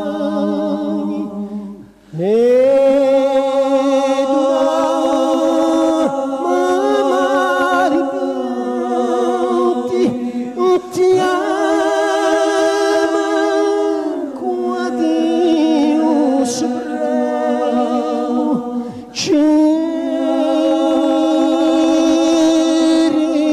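Vocal music: singing voices in long held notes with vibrato, with no instruments heard. There is a short break about two seconds in.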